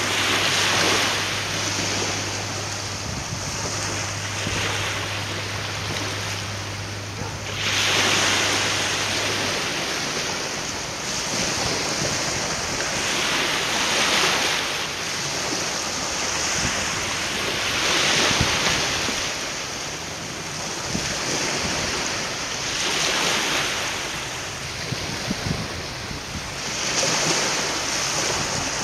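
Waves washing against the shore, swelling and easing every few seconds, with wind. A steady low hum stops about a third of the way in.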